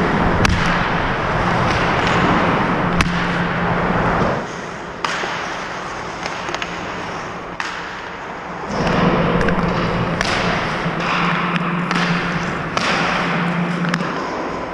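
Ice hockey sticks striking pucks: a series of sharp, irregular clacks a second or more apart over a steady hiss.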